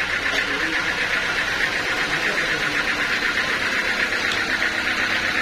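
Sawmill bandsaw running steadily, a continuous mechanical noise with a fast, even flutter.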